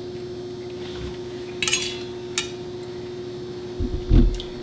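A fork clinking against a metal plate, a quick cluster of clicks and then one more, over a steady hum; a low thump near the end.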